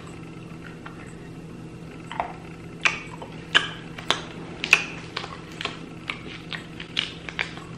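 A person chewing a soft piece of candy: a run of short, sharp wet mouth clicks and smacks, about two a second, starting a couple of seconds in.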